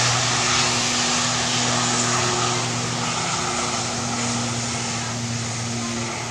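ATR 72 twin-turboprop at takeoff power on its takeoff roll: a steady propeller drone with a low hum over a broad hiss, slowly fading as it moves away.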